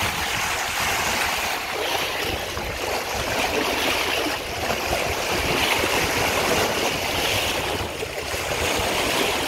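Choppy sea waves washing and splashing in among old wooden pier pilings: a steady rushing wash that swells and eases a little.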